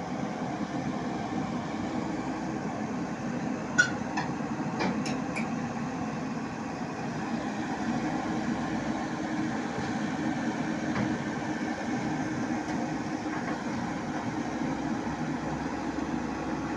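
Excavator's diesel engine running steadily, with a few sharp metal clanks about four to five seconds in.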